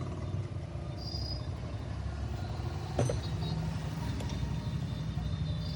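Steady low mechanical hum with a sharp knock about three seconds in.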